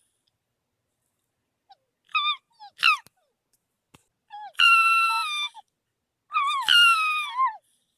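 Fox calling after a short silence: two brief yelps, then two longer, wavering, high-pitched cries that fall in pitch at the end.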